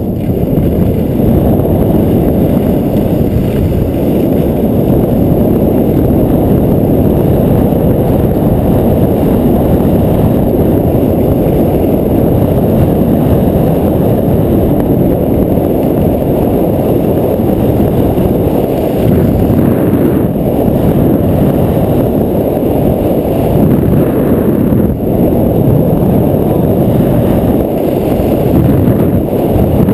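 Loud, steady wind rush hitting an action camera's microphone during a fast ski descent, mixed with skis running over packed snow.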